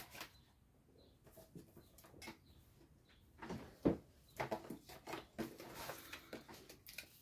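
Faint papercraft handling: scattered small clicks, taps and paper rustles as foam adhesive dimensionals are stuck onto the back of a cardstock label. The sharpest tap comes about four seconds in.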